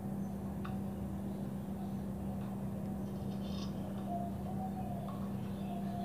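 Steady low hum with a few faint clicks and rustles of wire connectors being handled and pulled from a CRT television's circuit board.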